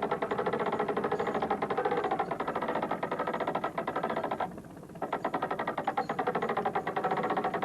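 Background music with a fast, even pulse that drops out briefly about four and a half seconds in.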